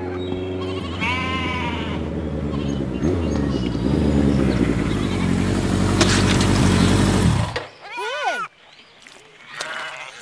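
Motorcycle engine running and drawing near, its pitch rising, then cutting off suddenly about three-quarters of the way through; a sharp clank about six seconds in as a metal bucket is knocked over. Animal bleats sound near the start and again after the engine stops.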